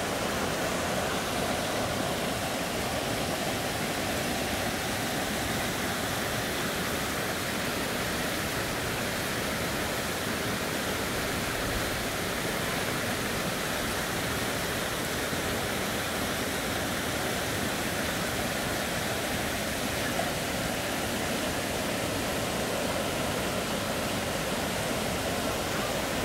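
Mountain stream flowing over rocks and small cascades: a steady, even rush of water.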